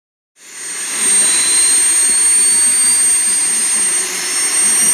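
Small model jet turbine engines of a radio-controlled Boeing 747 running, a loud rushing sound with a high whine that rises slowly in pitch as they spool up. It starts about half a second in.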